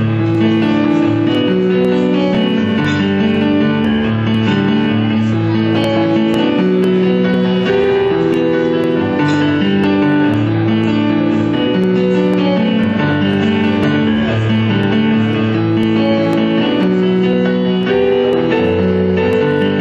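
Instrumental folk music played live: strummed acoustic guitar and keyboard, with a violin carrying the melody, playing steadily with no singing.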